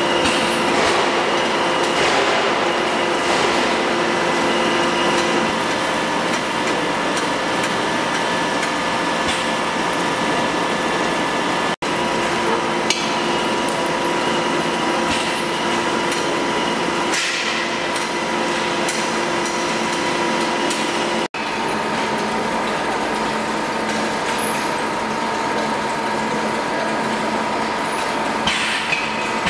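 Factory machinery noise on an LPG cylinder production line: a steady mechanical din with several held hums and a few sharp metal knocks. It drops out for an instant twice, and the hum changes each time.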